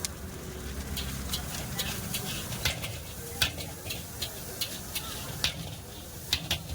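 A metal spoon stirring and scraping in a cooking pot, giving irregular sharp clinks every fraction of a second over a steady low hum.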